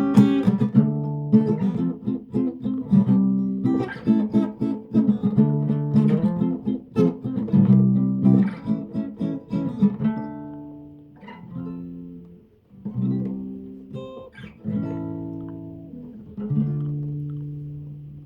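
Acoustic guitar strumming chords with no singing. After about ten seconds the strumming thins out into single chords left to ring and fade.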